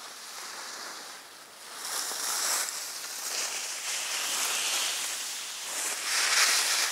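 Skis hissing and scraping over hard, icy piste snow, mixed with wind rushing over the action camera's microphone; it gets louder about two seconds in and swells again near the end.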